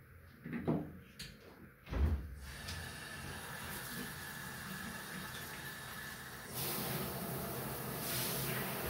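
Two knocks as the bathtub mixer tap and handheld shower are handled, then water running steadily from the handheld shower into the bathtub, getting louder about two-thirds of the way in.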